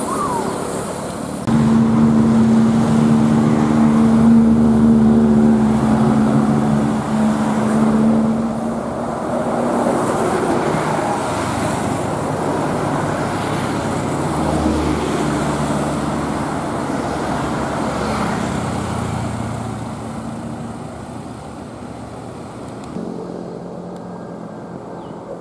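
Roadside traffic with a bus engine running close by: a steady drone starts about a second and a half in and holds one pitch for several seconds, then gives way to general traffic noise that slowly gets quieter.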